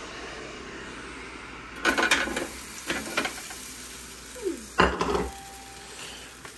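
Seasoned potato fries being tipped from a bowl into an air fryer basket, with bursts of clatter as the bowl knocks against the basket rim: about two seconds in, again near three seconds, and most strongly about five seconds in.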